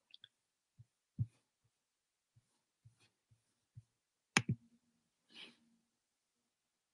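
Quiet room with scattered faint clicks and soft knocks, a sharper double click about four and a half seconds in, then a short breathy hiss.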